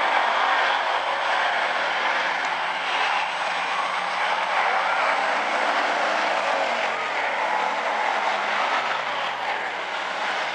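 Field of hobby stock race cars running at speed around the oval, a steady drone of several engines blending together.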